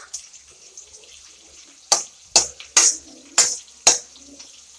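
Chopped onion sizzling in hot oil in a kadhai, a steady hiss. About two seconds in, a metal ladle scrapes through it five times, roughly one stroke every half second.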